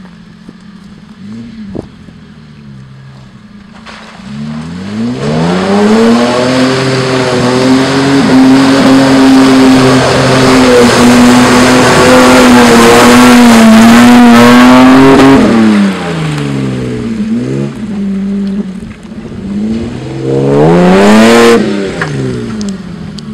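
Toyota Land Cruiser 80 series engine revving hard and held at high revs as the truck ploughs through a mud hole, with mud and water splashing. The revs drop about fifteen seconds in, then climb and fall once more near the end.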